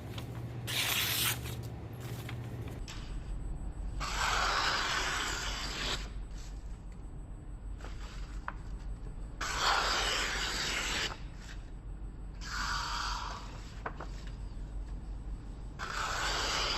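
Knife blade rasping in five separate strokes, each one to two seconds long, with pauses between.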